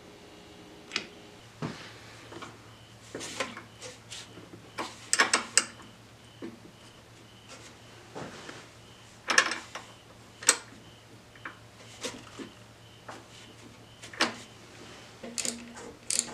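Irregular clicks, clinks and knocks of a wrench and brake parts being handled while a motorcycle's front brake is bled, over a faint steady hum.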